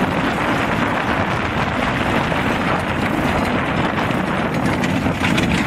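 Go-kart engine running as the kart drives over rough ground, mixed with a steady rush of wind over the microphone.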